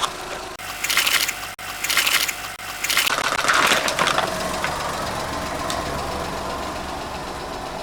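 Car tyre rolling over and crushing water balloons: several loud crunching bursts over the first four seconds, then the car's engine idling steadily.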